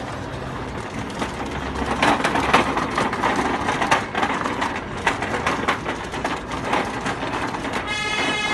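Small remote-control car driving with its electric motors running, its wheels giving an irregular, noisy clatter full of clicks and crackles. A short pitched whine comes in near the end.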